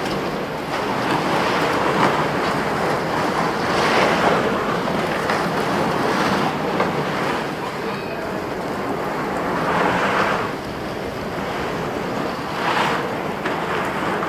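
Steady rushing, rustling noise from a camera microphone carried in a jacket pocket while walking, with swells now and then.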